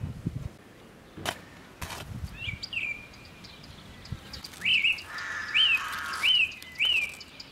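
Birds chirping: a few softer calls, then four loud notes each rising and falling in pitch, about one every two-thirds of a second in the second half. Two sharp clicks sound about one and two seconds in.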